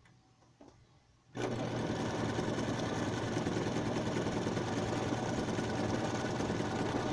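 Electric sewing machine starting suddenly about a second and a half in and then running at a steady speed as it sews a zigzag stitch.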